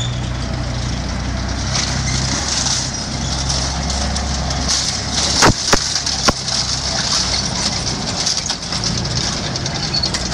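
A vehicle engine runs with a steady low hum under a hiss of outdoor noise. Three sharp cracks come a little past the middle, within about a second.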